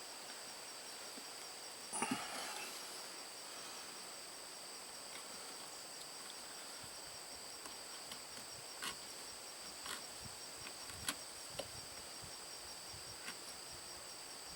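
Crickets trilling steadily in the background, with a scraping cut about two seconds in and a few faint clicks later as a small Leatherman Sidekick blade, reground to a chisel point, cuts into seasoned maple.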